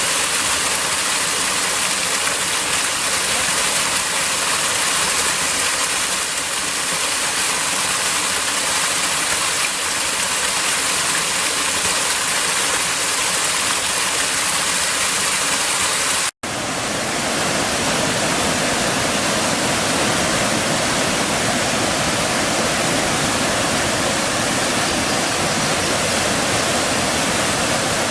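Waterfall and rushing stream water, a steady even rush. About two-thirds of the way through it cuts off for an instant and comes back with more low rumble, a change to another stretch of falling water.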